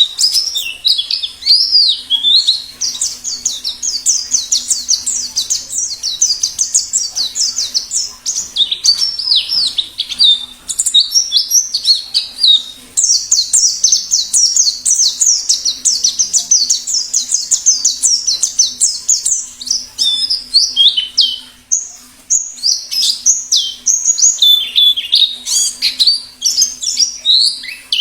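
A white-eye (pleci) singing a fast, continuous chattering song of rapid high chirps and twitters, broken only by a few brief pauses. It is the wild 'ngalas' song style.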